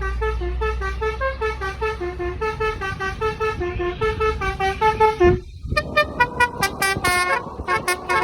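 A bus's multi-tone 'telolet' musical horn plays a fast tune, stepping quickly from note to note. About two-thirds of the way through it breaks off briefly and then sounds as a run of rapid short toots. A low rumble underneath fades out after about two and a half seconds.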